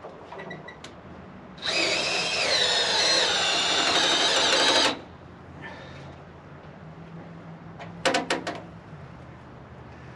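A sawmill's hydraulic pump whining for about three seconds as a hydraulic control is worked, such as lowering the toe board, its pitch dipping briefly under load and then holding steady before cutting off. A short metallic rattle follows near the end, over a low steady hum.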